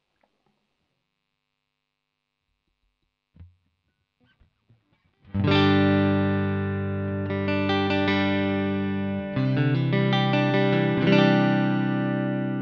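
JV Custom Origin T, a Telecaster-style electric guitar with single-coil pickups, playing on a clean tone through a modelling effects unit. After a near-silent pause with a faint knock, sustained strummed chords ring out about five seconds in, with chord changes about nine and eleven seconds in.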